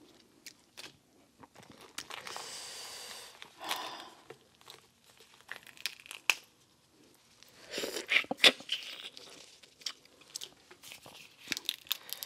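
Boiled crawfish being cracked and peeled by gloved hands: crisp snaps, crackles and tearing of the shells, loudest in a cluster of snaps about eight seconds in.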